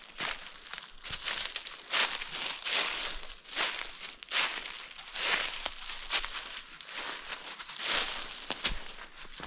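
Footsteps crunching through dry fallen leaves on the forest floor at a steady walking pace, about one step a second.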